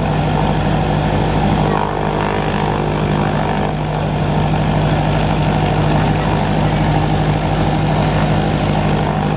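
Cessna 172M Skyhawk's four-cylinder Lycoming O-320 engine idling steadily with the propeller turning, at a constant low drone.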